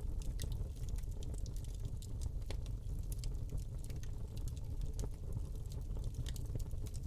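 Wood fire burning in a fireplace: a steady low rumble of the flames with scattered sharp crackles and pops from the burning log, several a second.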